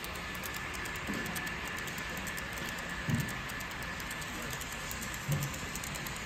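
A model train running on a show layout, heard over the steady background din of a busy exhibition hall. A faint high whine holds through the first few seconds.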